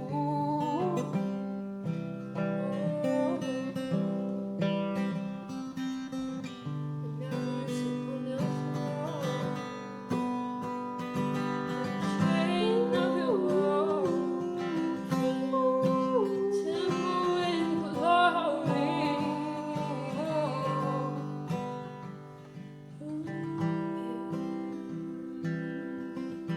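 Music: acoustic guitar playing chords, with a singing voice over it that is strongest in the middle and drops out briefly near the end.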